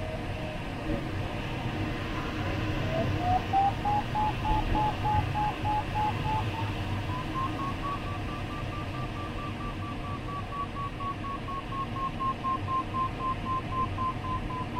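A glider's electronic variometer beeps steadily over the rush of airflow in the cockpit. The beeps dip in pitch a second or two in, then rise over several seconds and hold high before easing slightly near the end. The beeping signals the sailplane climbing in lift, and the higher pitch marks a stronger climb.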